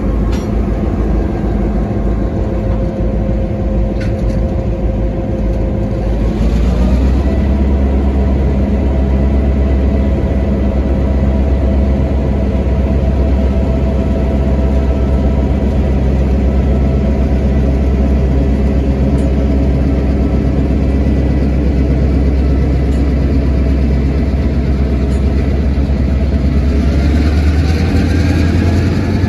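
EMD GP38-2 diesel locomotive's 16-cylinder two-stroke engine running. About seven seconds in it revs up, the note rising and then holding as a deep steady drone under load, and it shifts in pitch again near the end.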